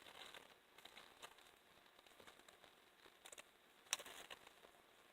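Near silence with faint crinkles and small clicks of a plastic zip-top bag being handled, one sharper click about four seconds in.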